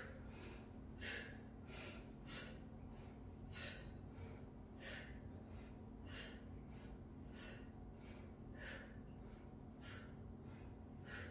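A woman's breathing in time with side crunches: a short, sharp exhale about every second and a quarter, with fainter inhales between, fairly faint.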